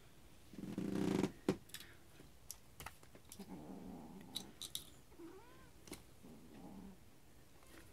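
A black kitten makes low, pulsing purr-like sounds in three short spells while playing with a ball toy, the first spell the loudest. Light clicks and knocks are scattered between them.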